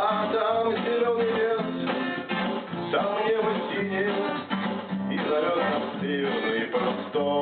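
Acoustic guitar music: an instrumental passage of a song, strummed guitar carrying the melody without singing.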